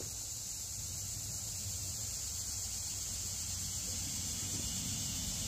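Steady insect chorus: a constant high-pitched drone, with a faint low rumble underneath.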